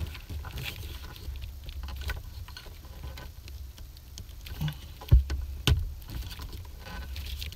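Hand fitting a plastic plug onto a diagnostic port and twisting its snap ring to lock it: rustling of wires and handling noise with small clicks and scrapes, and two sharper knocks a little after five seconds in.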